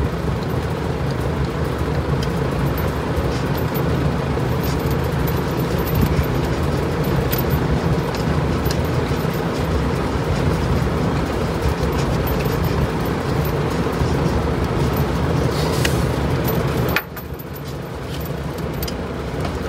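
A steady mechanical drone, with occasional light clicks and knocks as hoses and fittings are handled. The drone drops away suddenly about seventeen seconds in, leaving a quieter hum.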